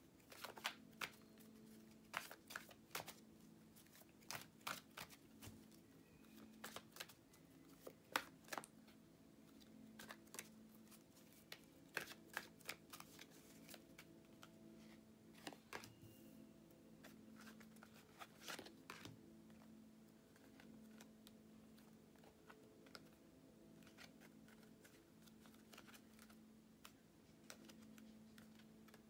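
Tarot cards being shuffled and handled: a string of short, sharp snaps and flicks, thickest over the first twenty seconds and sparse after, above a faint steady hum.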